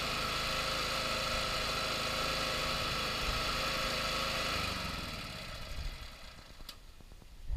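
Rotary lawn mower's petrol engine idling steadily, then shut off and running down about five seconds in, followed by a sharp click near the end.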